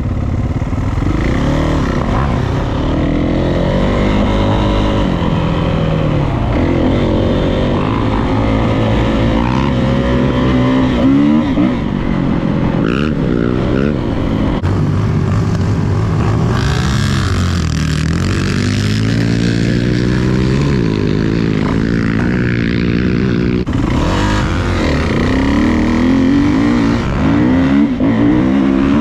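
Dirt bike engine revving, its pitch rising and falling again and again as the bike is ridden around a track, with an abrupt change twice that sounds like a cut.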